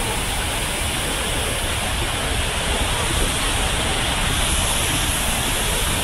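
Steady rushing noise of tall artificial waterfalls pouring over a rock cliff into a pond.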